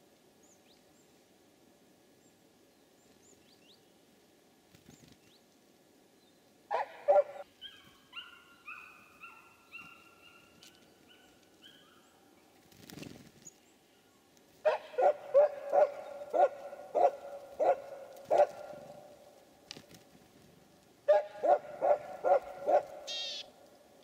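An animal's short barking calls, repeated about twice a second in runs: a few early on, a run of about seven past the middle and about five more near the end. Between the first two runs comes a descending series of stepped, whistled notes.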